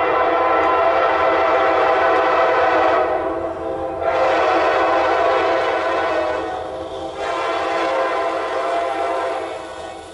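Horn of an approaching CSX diesel freight locomotive sounding several notes at once, in long blasts run nearly together with two brief dips, fading near the end.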